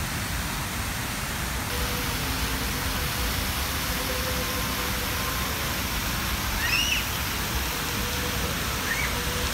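Crown Fountain's water cascading steadily down its glass-block towers and splashing onto the wet stone plaza, a constant rushing hiss. A couple of brief high chirps cut through it in the second half.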